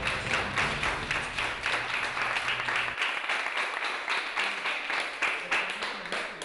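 A small group of people clapping, a dense, irregular patter of hand claps.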